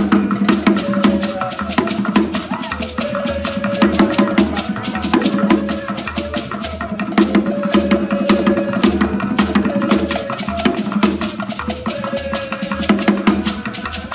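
African drum music with a steady, fast rhythm of sharp strikes over a repeating low pulse.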